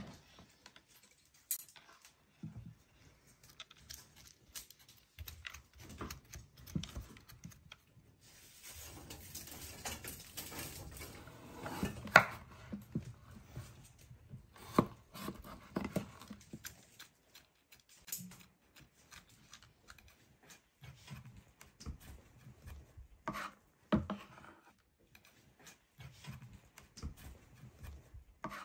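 Large kitchen knife cutting a melon on a wooden cutting board: scattered knocks of the blade against the board, with a longer stretch of slicing and scraping through the rind and seeds in the middle and one sharp knock about twelve seconds in.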